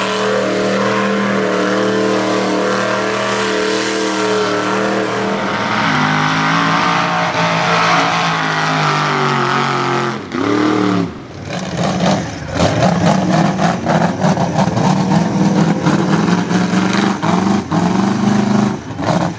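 Mud-bog trucks' engines running at high revs as they spray through mud, held steady at first and then shifting in pitch. A little past halfway there is a short drop, then another truck's engine is heard with rough, rapid crackling.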